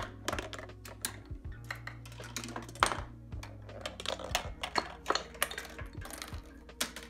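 Plastic K'NEX parts, wooden blocks and balls knocking, clicking and clattering as a homemade chain-reaction machine runs, several sharp knocks a second over a steady low hum.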